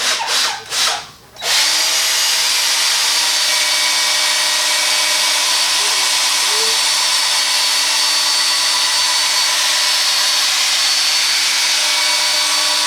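Electric polisher with a foam buffing pad starting up about a second and a half in and running steadily, buffing a second coat of finishing polish onto a faded plastic headlight lens.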